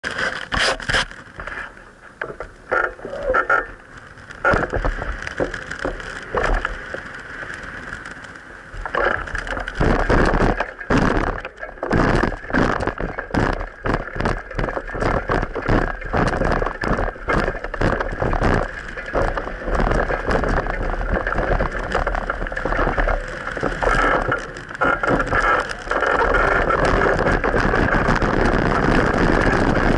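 Riding sound of a bicycle on a rough road, picked up by an action camera: rapid rattles and knocks over a steady road noise, with the rattling heavier from about nine seconds in and the noise steadier and louder near the end.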